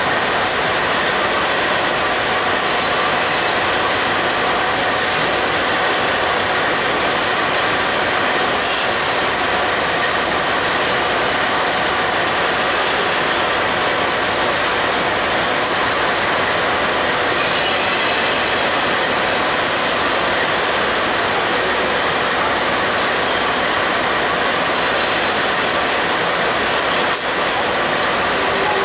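Double-stack intermodal freight train's cars rolling past at steady speed: a continuous rush of steel wheels on rail with a steady high whine over it.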